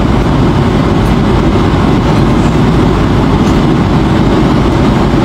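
Steady airliner cabin noise in flight, the even rush of engines and airflow, with a faint clink or two of a fork against a china bowl.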